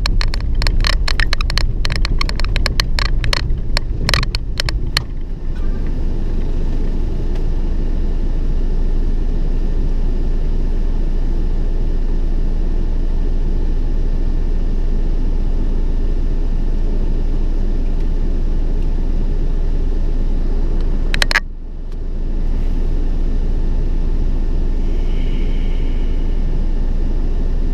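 Vehicle driving, heard from inside the cabin: a steady low road and engine rumble. In the first five seconds a loose door squeaks and rattles in quick clicks, and a single sharp knock comes about twenty-one seconds in.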